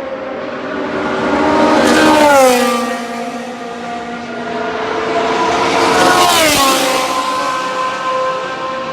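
Two race cars passing by about four seconds apart, each engine note dropping in pitch as it goes past, over the steady note of other engines on the circuit.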